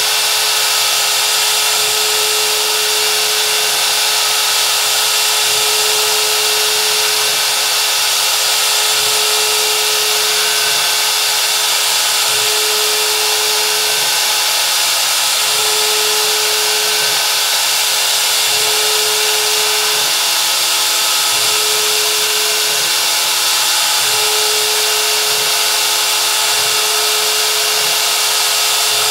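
A DIY CNC router's spindle running steadily while its V-bit carves shallow passes into MDF, a continuous high whine and hiss. A lower hum comes and goes about every three seconds as the machine moves back and forth over the work.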